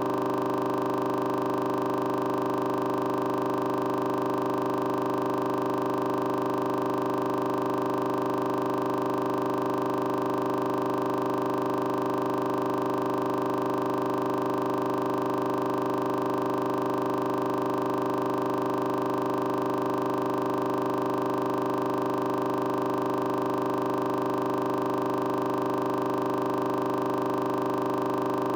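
Ambient drone music: several held tones sounding together, completely steady and unchanging.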